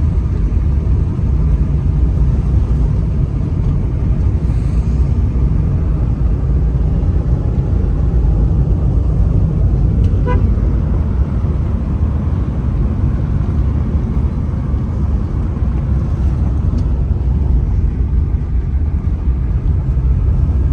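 Road vehicle driving steadily along a road, a continuous low rumble with no breaks. A faint short tone sounds about halfway through.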